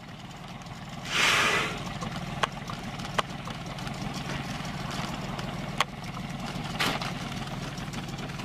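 Small boat's outboard motor idling steadily, with a short loud rush of noise about a second in, a fainter one near seven seconds, and a few sharp knocks.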